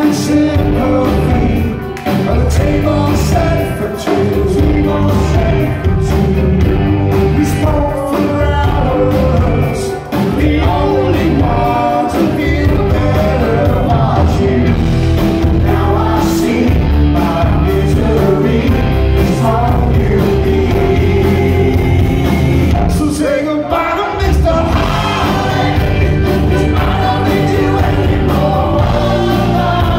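Live rock band playing a song: lead singer over electric guitars, bass and drums, with a guitarist adding backing vocals.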